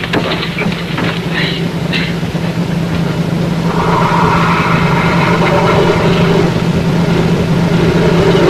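A few knocks and scuffling sounds, then from about four seconds in a steady electric buzzing sound effect. A constant low hum from the old kinescope soundtrack runs underneath.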